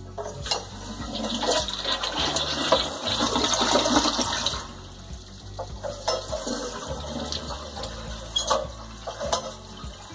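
Toilet flushing with its water supply shut off, emptying the tank into the bowl: a loud rush of water for about four seconds, then a quieter swirl and drain.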